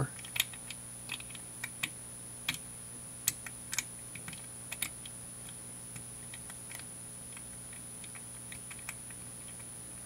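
Master Lock combination padlock's dial being turned by hand, giving scattered light clicks, most of them in the first five seconds.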